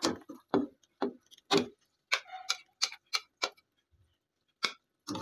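A spatula knocking and scraping against a black wok and a ceramic plate as cooked potato slices are served. About a dozen sharp, separate taps and clicks come at uneven intervals.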